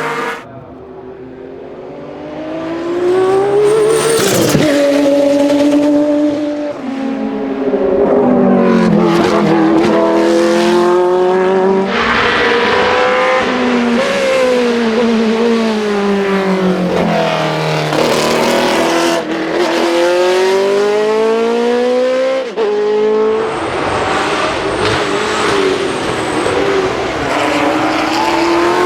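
Historic racing car engines revving hard and accelerating through the gears, the pitch climbing and then dropping at each upshift, with a car passing at speed about four seconds in.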